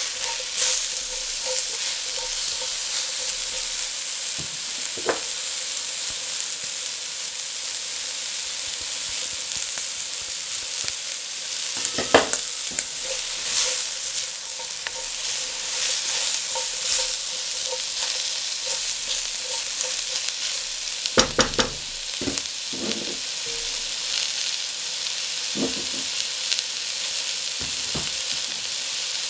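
Sliced onion, bell peppers and carrot sizzling in oil in a metal wok, stirred and turned with a silicone spatula: a steady frying hiss with scattered scrapes and knocks of the spatula against the pan, a cluster of them about three quarters of the way through.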